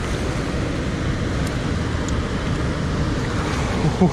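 Steady rush of water pouring through a dam spillway, an even, unbroken noise.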